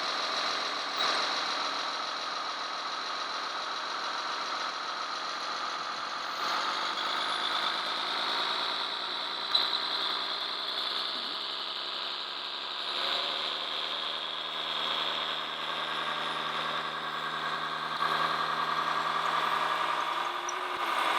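Radio-controlled model trucks and construction machines running: a steady mechanical whine with an engine-like hum that shifts in pitch a few times, and a single click about halfway through.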